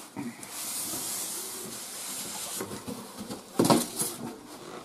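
Cardboard box being slid up off a printer's foam packing: a long steady scraping hiss, then a short burst of knocks and rustles about three and a half seconds in.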